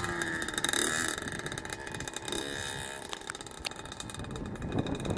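1982 Yamaha YZ80's two-stroke single-cylinder engine running faintly as the motocross bike is ridden, its revs rising and falling a couple of times.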